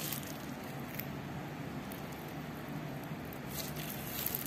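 Steady low background noise with a faint hum, and a few light clicks and scrapes of a spoon against a styrofoam food box, about a second in and again near the end.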